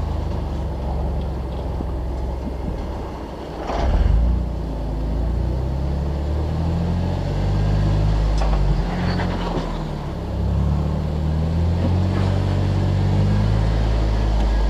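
Jeep Wrangler engine revving up and down under load as it crawls over rock, with a sharp loud knock about four seconds in and a few lighter knocks later.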